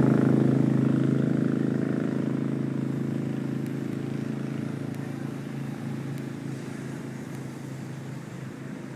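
A motor vehicle's engine running with a steady pitch, loudest at the start and fading steadily away.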